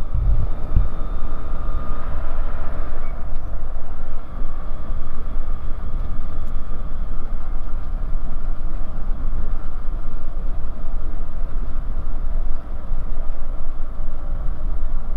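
Bristell light aircraft's carburetted engine and propeller running steadily at low taxi power, heard inside the cockpit.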